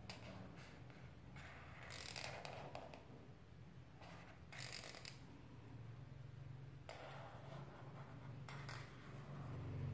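Felt-tip marker scratching across paper in a few short strokes, faint, over a low steady hum.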